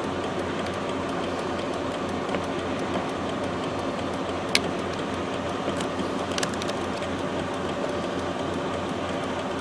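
A steady mechanical hum with a few sharp clicks, the sharpest about four and a half seconds in and a small cluster around six and a half seconds.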